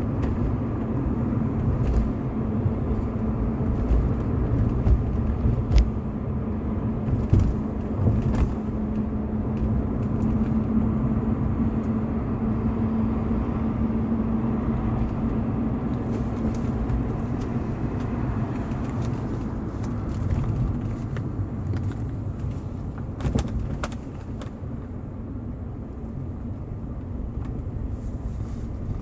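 BMW E46 320i's stock 2.0-litre M52TU B20 inline-six engine running with a steady hum, dipping in loudness near the end. A few sharp clicks sound over it, the strongest cluster around twenty-three seconds in.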